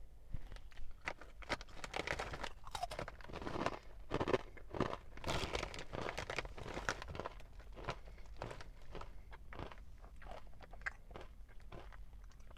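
A person chewing breaded popcorn shrimp close to the microphone, with a quick, irregular run of crisp crunches.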